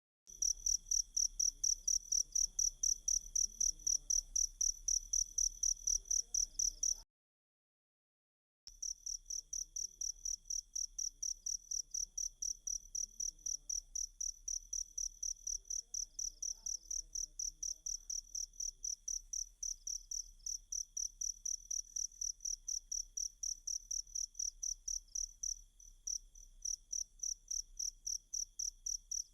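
Cricket chirping in a fast, even train of high-pitched pulses, about six a second, over a faint steady higher hum. The chirping breaks off for about a second and a half around seven seconds in, then resumes.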